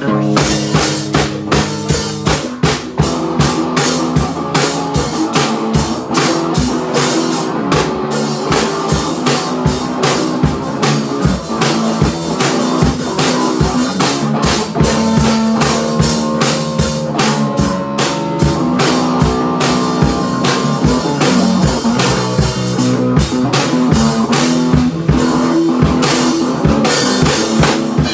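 Rock band jamming: drum kit with cymbals and bass drum driving a steady beat under an electric bass guitar and an electric guitar, with no singing.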